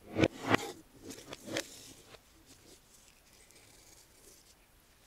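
Handling of a homemade wooden strap clamp: four light knocks of the wooden parts in the first second and a half, then the nylon webbing strap rustling faintly as it slides out of the spool.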